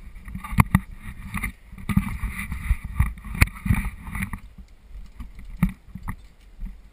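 Footsteps knocking on wooden stairs and a plank deck, a string of irregular thumps with rustling in between.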